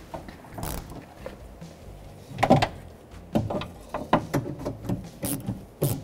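Clicks and knocks from hand work on a car's front door: one loud knock about two and a half seconds in, then a quick, irregular run of sharp clicks.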